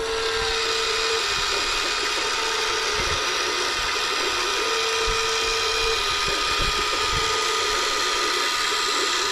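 Electric motor and gears of a toy radio-controlled forklift whining steadily as its forks lift a concrete block, with a tone that comes and goes a few times.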